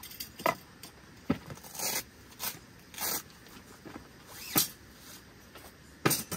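Handling noise: irregular sharp knocks and clicks with short rustling scrapes in between. The loudest knocks come a little past halfway and near the end.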